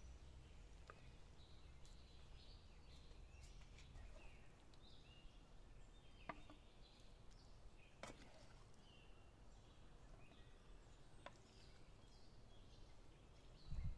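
Faint chirping of small birds, with a few light clicks of a wooden spoon against a metal pan and a plate while food is served.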